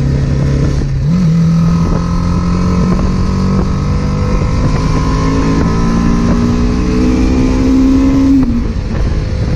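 BMW G310R's single-cylinder engine running while the motorcycle is ridden, with wind and road noise. The engine note steps up about a second in, then climbs slowly and falls back near the end.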